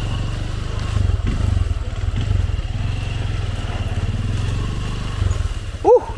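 Motorcycle engine running steadily at low revs while the bike rides slowly over a rough, broken track, with a few faint knocks about a second in. A voice starts just at the end.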